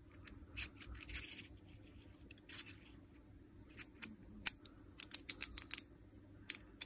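Safety clutch of a Makita DHR242 rotary hammer turned by hand, its metal halves slipping over each other with light metallic clicks. The clicks are scattered at first, then come in a quick run near the end. This is how the overload clutch gives way when the bit jams.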